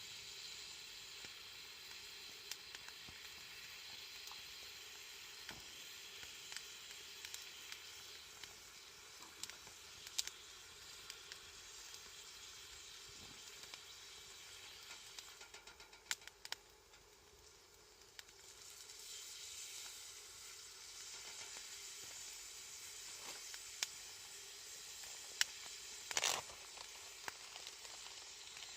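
Sukiyaki cooking in a pan over a fire, sizzling faintly and steadily with small scattered pops. The sizzle fades briefly past the middle, then picks up again, and a louder spatter comes near the end.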